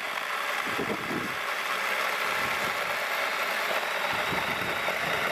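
Battery-powered mini chainsaw running steadily under load, its chain cutting through a wooden 2x6 board as it is pushed hard into the cut.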